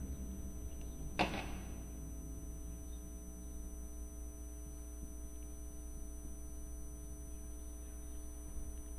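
Steady low electrical mains hum, with one short, sharp noise a little over a second in.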